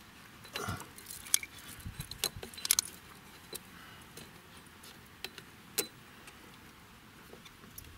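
Irregular metallic clicks and clinks of a wrench working the drive-belt tensioner in a Jaguar XJR 4.0 engine bay as the tensioner is released to take the belt off. A quick flurry of them comes in the first three seconds, then a few scattered ones, with one sharp click near the middle.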